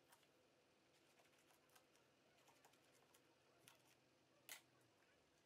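Near silence with faint, scattered small clicks of scissors snipping and a vinyl cutting sheet being handled, and one sharper click about four and a half seconds in.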